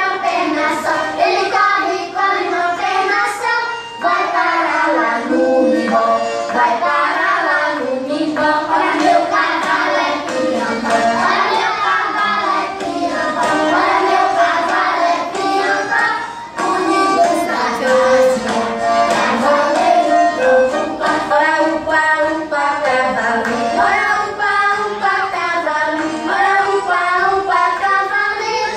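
A song with a sung melody over instrumental accompaniment, playing without a break.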